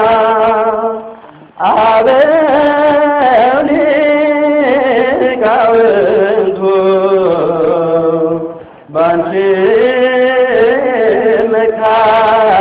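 A voice singing an Ethiopian Orthodox hymn (mezmur) in long drawn-out phrases with a wavering vibrato, pausing briefly about a second and a half in and again near nine seconds.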